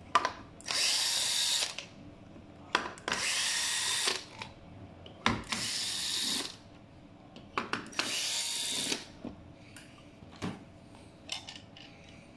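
Cordless drill-driver backing out the four screws of an electric scooter's rear foot-pedal cover plate: four short runs of about a second each, a couple of seconds apart, with light clicks and taps between them as the screws and plate are handled.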